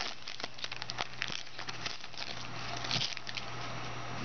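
Trading cards being handled and flipped through: a run of light clicks and crinkles, thickest in the first three seconds, over a steady low hum.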